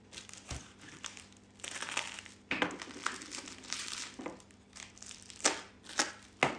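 Plastic bubble wrap crinkling and crackling as it is handled. Near the end come a few sharp snips as scissors cut into the wrap.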